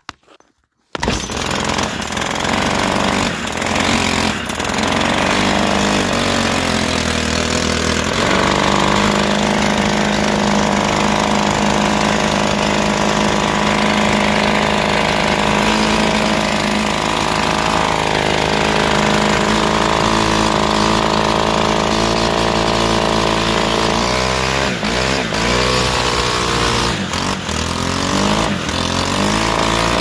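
Stihl FS-111 string trimmer's small 4-MIX engine catching about a second in and running, its speed climbing after several seconds, then holding steady and surging up and down near the end. It is running rough because fuel has leaked into the air filter and choked it, and it keeps dying unless the throttle is held.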